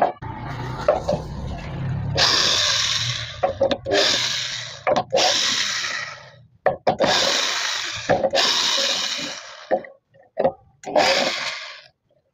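Cordless drill-driver backing out the screws that hold a metal faceplate to the base of a turned wooden bowl. It runs in about seven short bursts, each half a second to a second and a half long.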